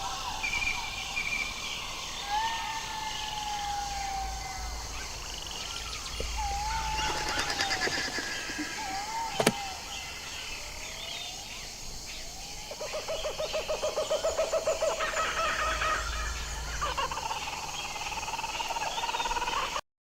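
Jackals calling: sliding, wavering wails, then a run of rapid yipping calls in the second half. There is a single sharp click about halfway, and the sound cuts off abruptly just before the end.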